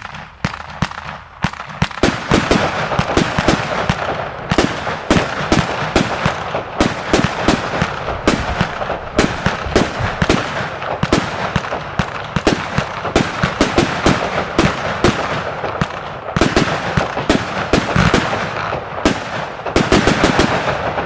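Lesli Mairo Gold consumer firework battery firing: a fast, continuous run of sharp bangs, a few a second, from launches and bursting multicolour star shells over a steady hiss.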